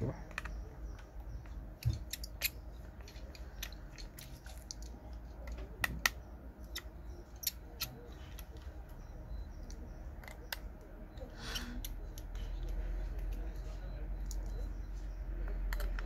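Scattered light clicks and ticks of small repair tools and parts on an opened smartphone, with a short scrape about halfway through. A low hum grows louder in the last few seconds.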